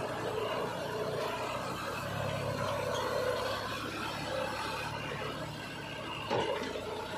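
Diesel engines of a Sonalika 35 DI tractor and a JCB 3DX backhoe loader running together, the tractor under load pulling a trailer through mud. The engine note swells for a couple of seconds in the middle, and a single clunk sounds near the end.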